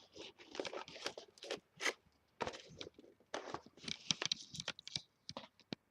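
Cardboard and plastic toy box packaging being handled and its tape cut and torn open: a busy run of crackling, scraping and tearing sounds with sharp crunches.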